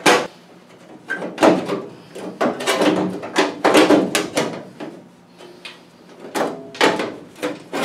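Sheet-steel firewall half from a 1935 Ford truck being wrestled out of a car's cowl by hand, scraping and clunking against the surrounding metal in a run of irregular knocks and scrapes, with a lull just past halfway.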